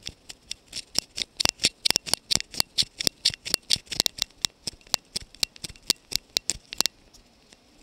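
Raindrops striking right at the microphone, landing on the camera or something just above it, as a fast, irregular run of sharp taps that stops about seven seconds in.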